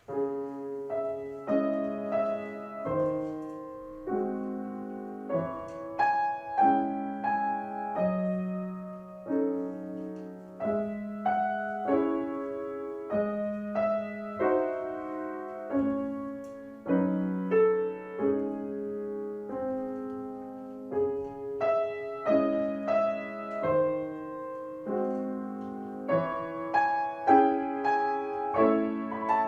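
Solo piano playing a piece with melody over chords, each note struck and left to ring. The playing begins out of silence right at the start.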